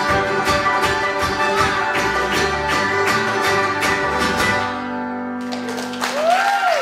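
Acoustic string band of banjo, acoustic guitar, upright bass and fiddle playing the last rhythmic bars of a folk song and ending on a held chord that dies away. About a second later the audience bursts into applause with a cheer.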